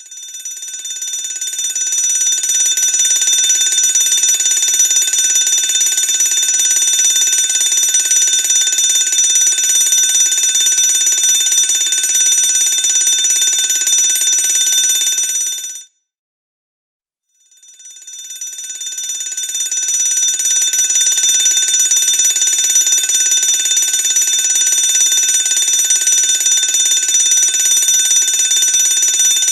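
Fire alarm bell ringing continuously, swelling to full loudness over the first couple of seconds. About 16 seconds in it stops suddenly, then starts ringing again a second and a half later.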